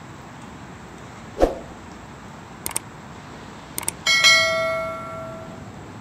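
Steady hiss of gentle surf, overlaid with a subscribe-button sound effect: a soft thump, two pairs of mouse clicks, then a notification bell ding that rings out for about a second and a half.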